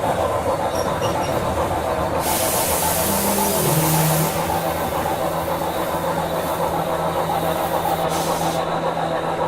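Steam locomotive sound effects: a steady running noise, with a burst of steam hiss about two seconds in that lasts about two seconds and a shorter hiss near the end. A low steady hum comes in about three seconds in.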